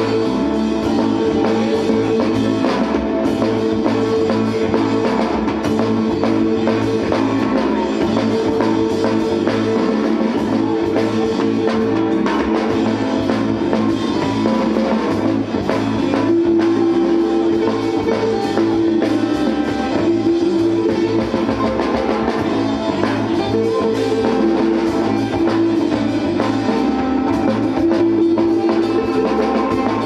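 Live band playing rock music with no singing: guitars over a bass line and a drum kit keeping a steady beat.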